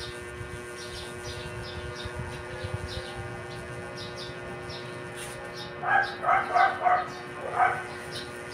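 Small birds chirping about twice a second, and about six seconds in a chicken gives five loud clucks in quick succession, over a steady low hum.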